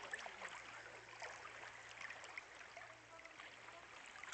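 Faint sea water lapping and trickling close to the microphone, with many small splashes and drips around a swimmer.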